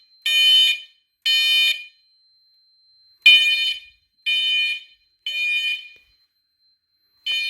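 Fire alarm horn sounding the temporal-three evacuation pattern: three loud half-second beeps, a pause of about a second and a half, then the next three, signalling that the system is in alarm after a smoke detector tripped zone 1.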